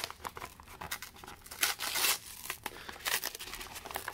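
A tape-wrapped manila envelope being torn open by hand: clear packing tape and paper crackle and rip in a series of short tears, the longest about two seconds in.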